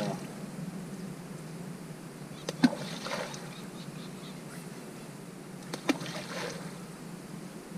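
Two balls of groundbait plopping into reservoir water, about two and a half and six seconds in, each a sharp plop followed by a brief splash.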